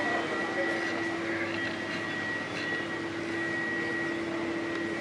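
Steady mechanical hum: a low steady tone and a thin high whine over a noisy background, with a few faint ticks.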